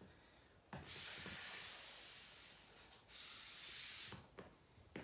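Exercise sliders under bare feet gliding over a wooden floor, a hissing swish as the feet are pushed out and drawn back in during plank pikes, with short quiet pauses between strokes.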